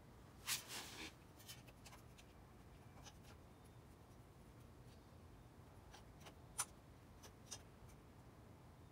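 Mostly near silence, broken by a few faint scrapes and clicks of a soldering iron tip working solder on a stainless motorcycle muffler: a short cluster about half a second in, then two single clicks later.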